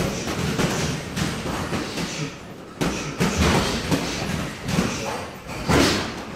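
Boxing gloves thudding at irregular intervals as punches land during sparring, with the hardest blow near the end.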